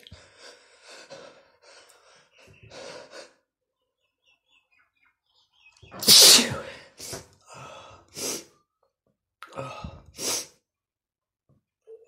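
A man's sneezing fit: a few gasping breaths, then a loud sneeze about six seconds in, followed by several shorter sneezes.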